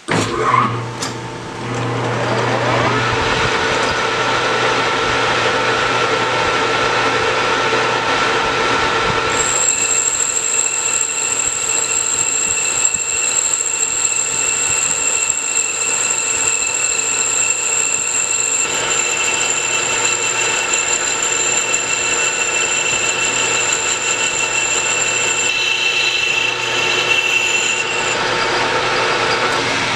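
Hendey metal lathe starting up, its pitch rising over the first few seconds as the spindle comes up to speed, then running steadily while a solid carbide boring bar cuts the inside of a stainless steel tube. About a third of the way in, a high steady whine joins the sound and lasts until near the end.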